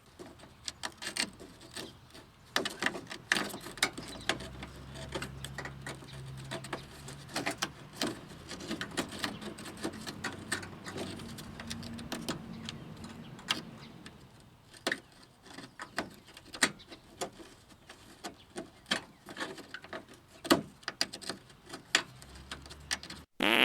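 Irregular clicks, knocks and plastic rattles of hand tools working screws into a car's plastic underbody splash shield.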